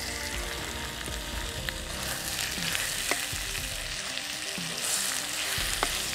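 Pieces of raw cow intestine dropped by hand into hot oil in a clay pot with garlic, shallots and chillies, sizzling and frying with scattered pops. The sizzle swells as the meat goes in at the start.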